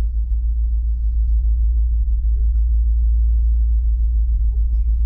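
Steady deep rumble of a ferry's engines and hull vibration under way, heard from inside the forward cabin.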